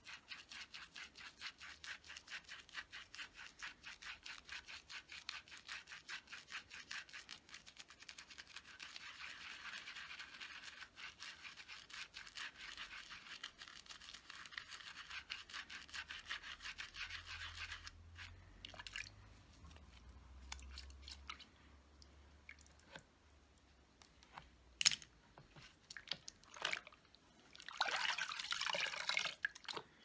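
Soapy makeup brush bristles scrubbed rapidly back and forth over a textured silicone brush-cleaning pad, in a fast, even rhythm of wet swishing strokes. About eighteen seconds in the scrubbing stops, leaving a few scattered small taps and drips. Near the end there is a short swish of water.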